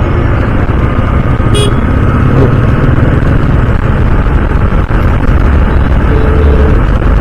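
Honda CD 110's single-cylinder four-stroke engine running while the motorcycle is ridden through city traffic, with heavy wind rumble on the microphone. A brief high-pitched tone sounds about one and a half seconds in.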